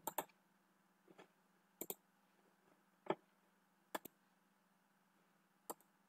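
Faint, sharp clicks, about six at irregular intervals, two of them in quick double clicks.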